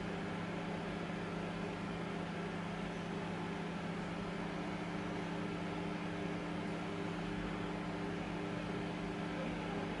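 Microwave oven running: a steady low electrical hum with fan noise.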